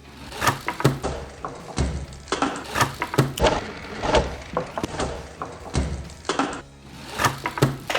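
A plastic K'nex toy monster truck running down a K'nex ramp, flipping and crashing: a run of sharp clattering knocks and clicks of plastic pieces hitting the track, the table and the floor as the truck breaks apart.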